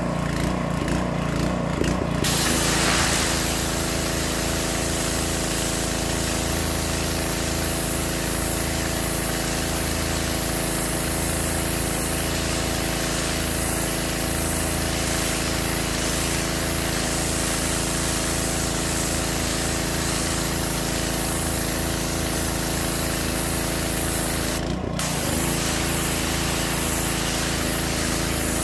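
Petrol pressure washer engine running steadily under load. About two seconds in the trigger is pulled and the high-pressure jet hisses onto paving slabs, with the newly fitted pump back up to full power. The spray cuts out for a moment near the end, then resumes.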